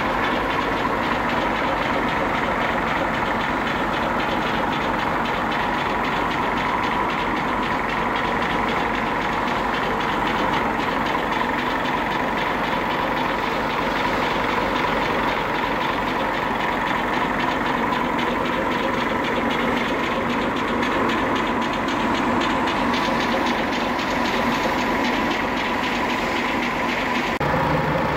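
Overhauled DAF XF 95-430 inline six-cylinder diesel engine with a mechanical injection pump, running steadily at idle on a test stand with a typical diesel clatter. The sound changes slightly near the end.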